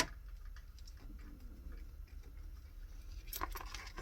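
Faint clicks and taps of small parts being handled during hand-tool work, with a sharp click at the start and a short cluster of clicks near the end.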